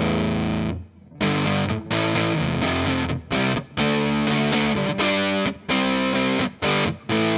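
Humbucker-equipped electric guitar played through a Way Huge Red Llama overdrive with the gain turned up: a run of short, thick distorted chords with brief breaks between them, the low end slightly woolly and breaking up.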